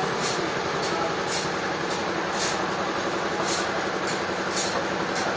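Sawmill machinery running steadily, a dense mechanical noise with a short high hiss repeating about once a second.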